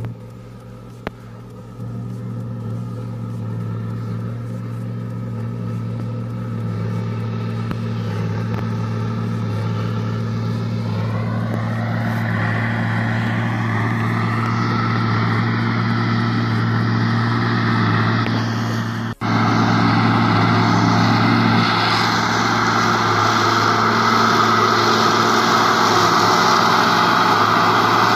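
Case IH 7210 Magnum tractor's six-cylinder diesel working steadily under load while it pulls a large square baler through straw, growing louder as it approaches. About two-thirds of the way through the sound cuts out for an instant, then is much louder and closer, with the baler's churning noise over the engine.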